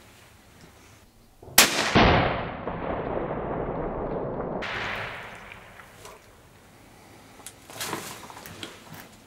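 A single hunting-rifle shot about one and a half seconds in: a sharp crack, then a loud report that rolls on and fades away over about three seconds. A few faint clicks follow near the end.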